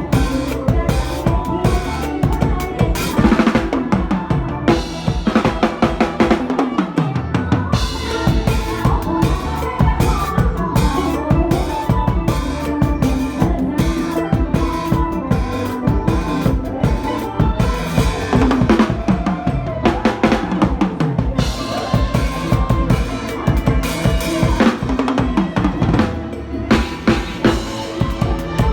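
Drum kit played to a lively mor lam beat: fast, steady bass drum, snare and rimshot hits over a band playing a melody.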